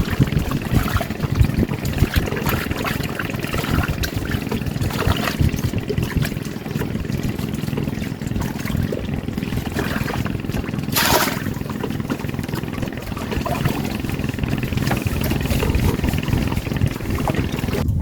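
Outdoor wind and water noise: a steady rumble of wind on the microphone with water moving against a floating raft, scattered small knocks, and a brief rush of noise about eleven seconds in.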